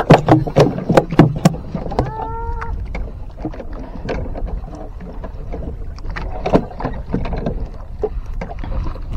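A freshly landed trevally knocking and slapping against the wooden planks of a small boat's deck while it is gripped and unhooked. There is a quick run of sharp knocks in the first second and a half, a short squeak about two seconds in, then scattered knocks, all over a steady low rumble.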